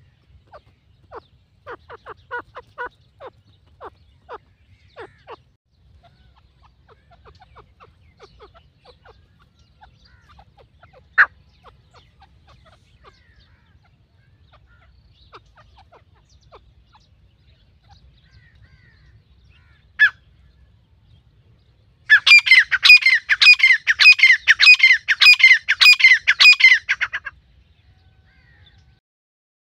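Grey francolin (teetar) calling: soft short clucking notes at first, a single sharp call twice, then a loud burst of rapid repeated calls, several a second, that lasts about five seconds and stops abruptly.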